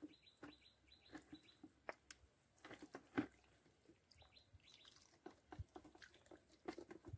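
Faint short chirps from a small pet parrot: a quick run of them near the start and a few more about four seconds in, over near silence with scattered soft clicks.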